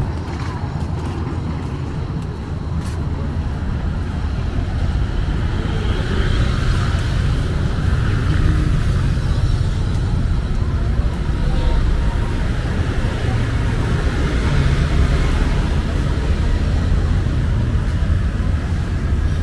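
Street ambience: a steady rumble of motor traffic going by, with faint voices.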